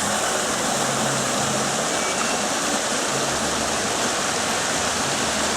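Waterfall pouring steadily: an even rush of falling water with no breaks.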